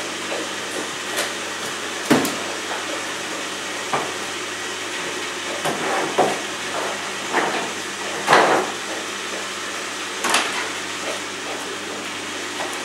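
Irregular wooden knocks and thuds from beehive boxes, lids and frames being handled, about five of them with the loudest about eight seconds in, over a steady background hiss.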